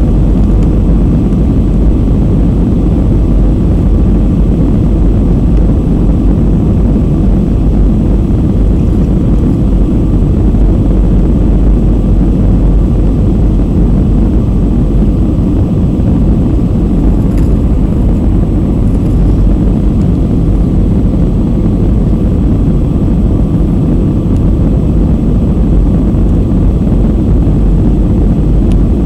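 Steady low drone of an airliner's engines and rushing air, heard from inside the passenger cabin during the descent to land.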